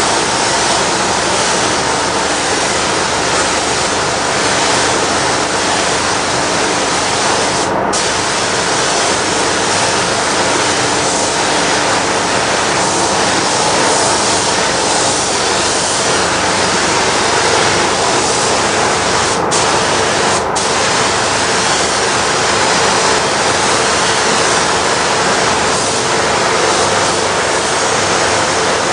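Gravity-feed paint spray gun hissing steadily as clear coat is sprayed onto a car bumper. The hiss drops out for a moment once about eight seconds in, and twice in quick succession around twenty seconds in, as the trigger is let off.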